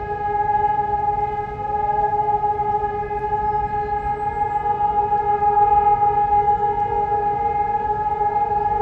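Several electronic civil-defence sirens sounding a steady tone: the one-minute all-clear (Entwarnung) signal that opens the test alarm. A second, slightly higher steady siren tone joins about four seconds in, and fainter sirens glide up in pitch twice as they start.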